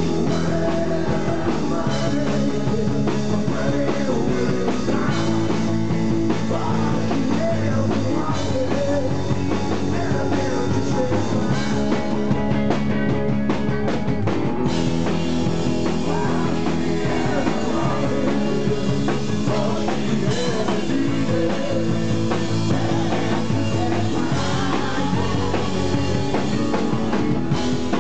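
Rock band playing live: electric guitars, bass guitar and drum kit playing a song steadily at full volume.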